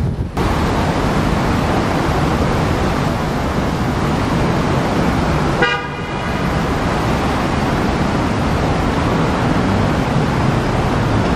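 Steady city street traffic noise, with one short car horn toot about halfway through.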